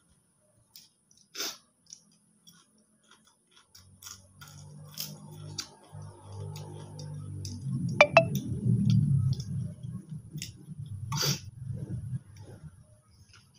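Crunching and chewing of a crisp fried rempeyek cracker eaten with rice by hand, in scattered sharp crunches. A low hum swells from about four seconds in, is loudest through the middle and fades near the end.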